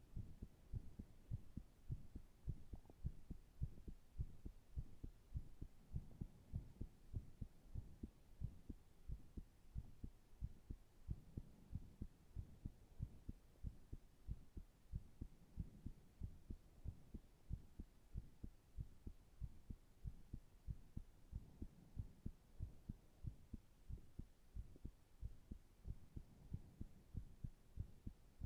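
A human heart beating at rest: a steady, regular series of low thumps.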